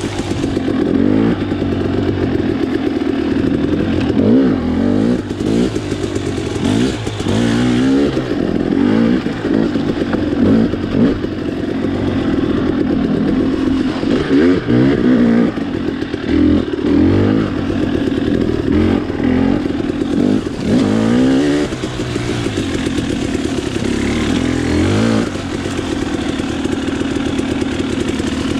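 Dirt bike engine revving up and down over and over under changing throttle on an off-road trail, its pitch rising and falling every second or two, then holding steadier near the end.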